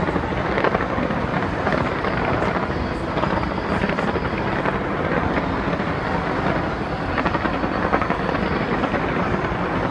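Fireworks display going off without pause: a dense, steady rumble of bursts with many small cracks running through it.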